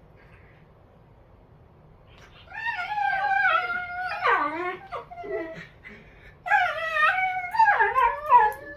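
Two dogs play-fighting, trading high whining, yowl-like vocalizations that slide up and down in pitch, starting about two and a half seconds in, with a brief pause near six seconds.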